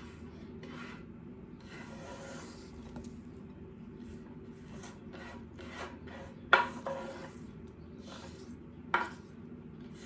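Spoon scraping and stirring through a bowl of chatpate mix in short, irregular strokes, with two sharper knocks about six and a half and nine seconds in.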